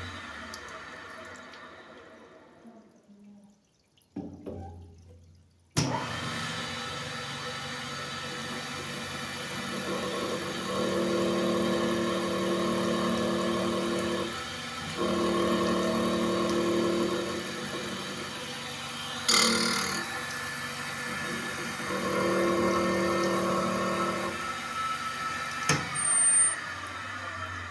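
Sharpening machine's motor winding down almost to a stop, then switched on again with a sharp click and running steadily. Three times, for about three seconds each, it runs louder with a deeper hum, as it does under load. There are short sharp clicks near the middle and near the end.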